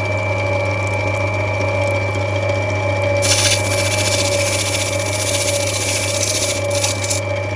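Water-fed lapidary grinding wheel running with a steady motor hum and whine. From about three seconds in, a harsher hiss rises over it for about four seconds as the opal is pressed onto the wet wheel to grind it back.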